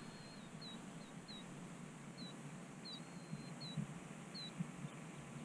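Small bird chirping: short, high, hooked notes repeated every half second or so, with one note drawn out briefly about three seconds in, over a faint steady background.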